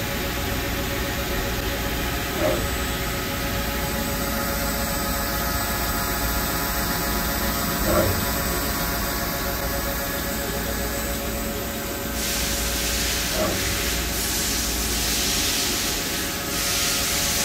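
Summit Smartcut 24-4 x 80 CNC combination lathe running with its spindle and chuck turning: a steady hum with several held tones and a soft knock every five or six seconds. A hiss joins about two-thirds of the way through.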